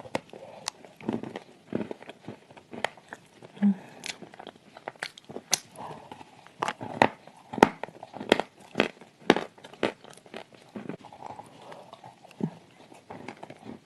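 Dry sand clay being crushed and crumbled close to the microphone, with soft paste. It makes a run of irregular, crisp crunches and crackles, several a second.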